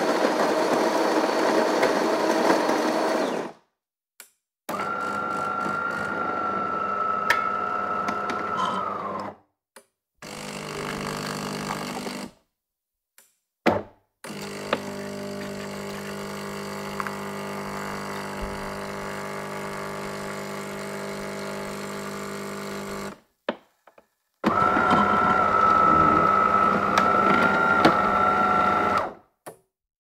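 Espresso machine running in several separate short takes, each starting and stopping abruptly with silence between. Some takes carry a steady high whine over the noise; the longest, in the middle, is a steady low hum.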